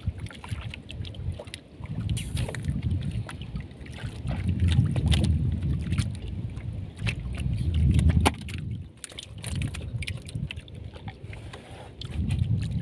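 Water washing against a small fishing boat's hull in low, swelling surges, with scattered knocks and taps as a baited longline is hauled in by hand over the gunwale.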